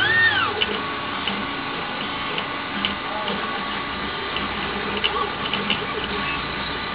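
Teneth cutting plotter's stepper motors moving the cutting head and feeding the sheet during a contour cut: a whine that rises, holds and falls right at the start, then a steady motor hum with light ticks and clicks.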